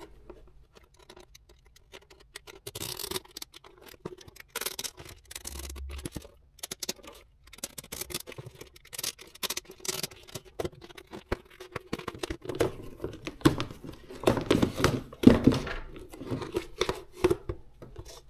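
Stitching thread being picked and ripped out of a cowboy hat's brim seam with a small hand tool: irregular snapping and tearing, busier and louder near the end.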